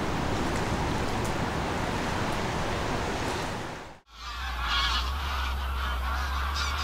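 Steady rush of sea surf, then after a sudden cut about four seconds in, a flock of large birds calling repeatedly in flight over a low steady hum.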